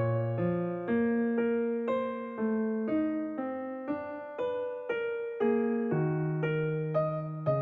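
Slow, gentle solo piano music: single melody notes struck at an even pace of about two a second over sustained lower notes, each note decaying before the next.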